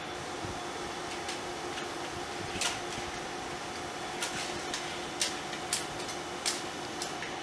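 Steady mechanical hum with a faint steady tone underneath, broken by about eight light clicks and taps as hands work the plastic fittings at the centre of a 35mm film roll on a projector platter.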